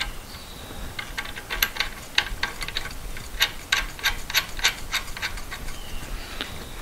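Small metal clicks and rubbing from a trim router's collet being unscrewed and swapped by hand at the spindle, an irregular run of quick clicks through the middle.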